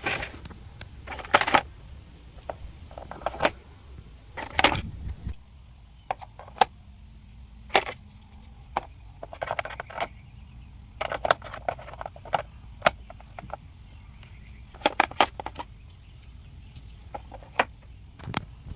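Plastic parts of a pet water fountain being handled and fitted together: irregular sharp clicks and knocks, some in quick clusters.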